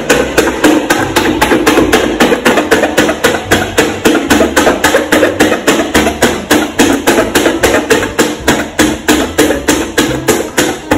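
A pen point stabbing holes through a paper card on a tabletop: a fast, even run of sharp taps, about four or five a second.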